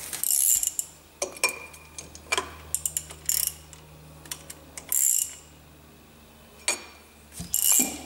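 Ratchet clicking in short bursts, with clinks of metal tools: the wheel-bearing adjusting nut on a Land Rover front hub being worked with a hub-nut socket, backed off a little after being tightened to a stop to set the bearing preload.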